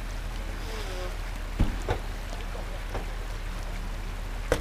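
Off-road vehicles idling at a distance, a steady low engine rumble, with a few sharp knocks about one and a half and two seconds in and again near the end.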